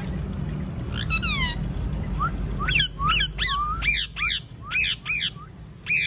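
Rose-ringed (Indian ringneck) parakeet calling: one falling call about a second in, then a quick run of short, sharp screeches through the second half.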